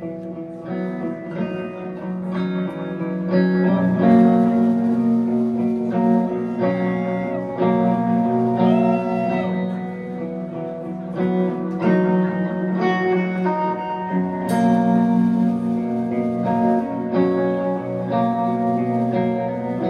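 A band playing a song live, with guitar over held chords and a wavering melody line.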